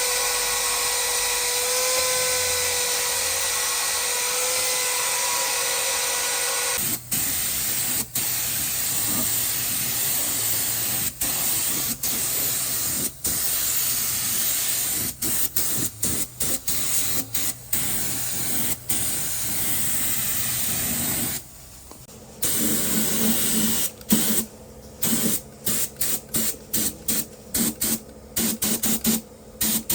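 Compressed air hissing from a hand-held air gun, steady for about seven seconds with a faint whine over it, then released in many short bursts that start and stop with the trigger, coming quickly near the end.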